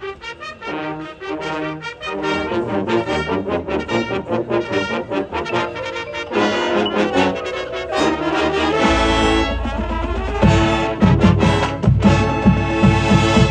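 Marching band playing, brass to the fore, in quick rhythmic figures. About nine seconds in, a deep low rumble and heavy accented hits come in, and the music builds louder to the end.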